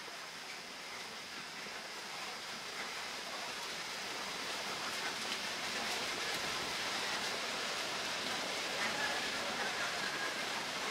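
A steady rushing noise that swells gradually louder, with a faint thin high tone held above it.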